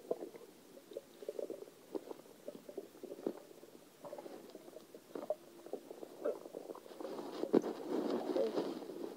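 Stomach gurgling and bubbling with soda just swallowed: irregular gurgles and small pops. It grows into a louder, busier stretch of gurgling near the end, with one sharp pop at the start of it.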